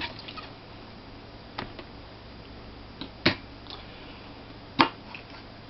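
About five short, sharp clicks and knocks of a laptop hard drive in its metal case being handled, the loudest about three seconds in.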